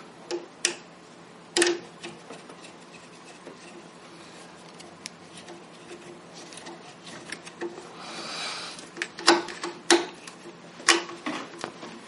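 Hand screwdriver driving 2-inch wood screws through a brass door hinge into the jamb to firm up a loose hinge. Scattered sharp clicks come from the tip on the screw heads and hinge leaf, the loudest a little over a second in and three more near the end. A short grinding rub about eight seconds in is the screw turning into the wood.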